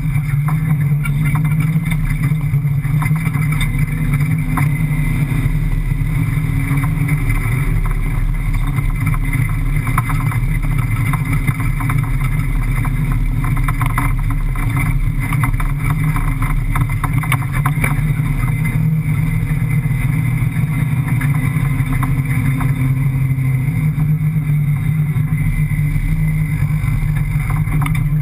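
Rally car's 5.7-litre Hemi V8 running steadily under load across soft sand, heard from inside the cab, its pitch shifting only slightly. Scattered clicks and rattles come through over the middle stretch.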